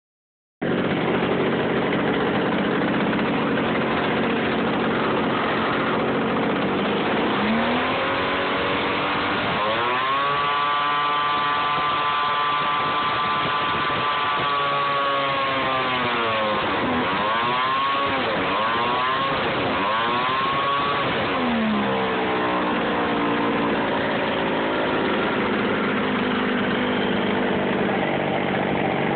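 Zenoah G26 two-stroke gasoline engine with its propeller running on a Super Decathlon RC model airplane. It runs steadily at low speed, is throttled up about eight seconds in to a high, steady whine, is throttled back and up again twice, then settles back to idle a little past the twenty-second mark.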